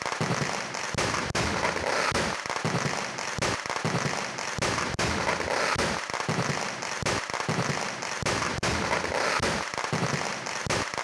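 Temple fireworks display in its final stage: aerial shells and crackers bursting in a continuous, rapid barrage of bangs and crackling. It is heard through a mobile phone's microphone.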